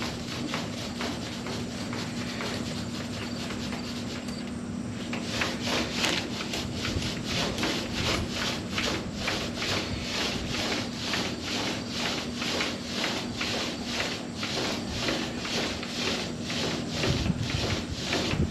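Rhythmic back-and-forth hand strokes rubbing over the car's body panel, starting about five seconds in and going at about two strokes a second. A steady low hum runs underneath.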